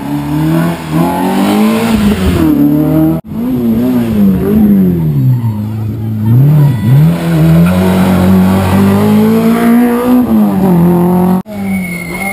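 Rally car engine at full throttle, its revs climbing and dropping again and again as it shifts up through the gears while passing at speed. The sound cuts out abruptly for an instant twice, about three seconds in and near the end.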